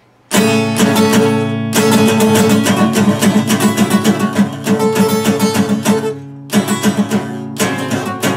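Steel-string acoustic guitar strummed in a fast, rhythmic chord pattern. It starts a moment in and pauses briefly a few times.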